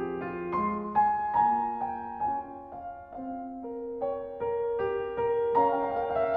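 Piano music playing slow, held notes and chords, one new note after another.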